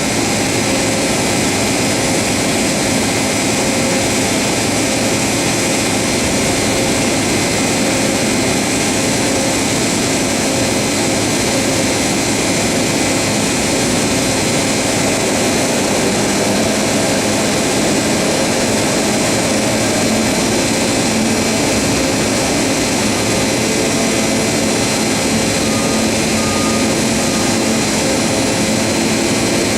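LeBlond Makino MC1813 CNC horizontal machining center running under power: a loud, steady mechanical whine with several held tones over a hiss and hum, unchanging throughout.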